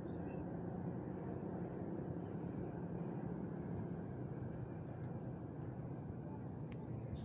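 Steady low drone of a boat engine running.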